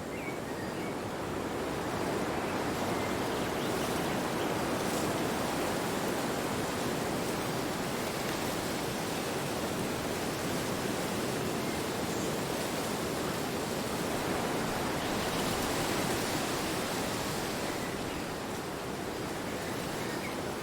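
Wind blowing as a steady, dense rushing noise that swells about two seconds in, rises again a little past the middle, and eases slightly near the end.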